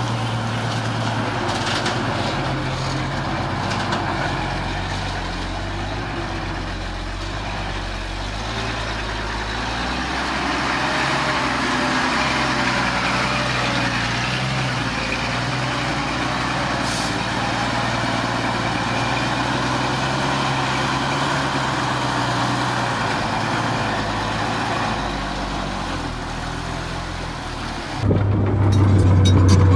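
Heavy diesel earthmoving machinery running steadily with a low engine drone. Near the end the sound cuts abruptly to a louder, deeper hum.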